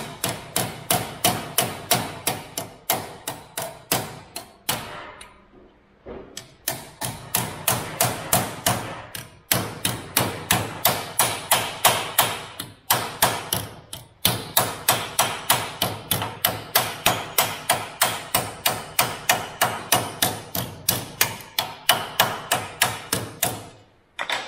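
Hammer striking a zinc-coated sheet-metal patch panel held in a bench vise, shaping it into a repair patch: a steady run of metallic blows about three a second, each with a short ring, with brief pauses about 5, 9 and 13 seconds in.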